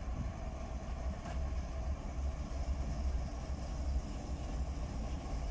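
Diesel freight locomotive running with a steady low rumble, a faint hum over it. A single short click about a second in.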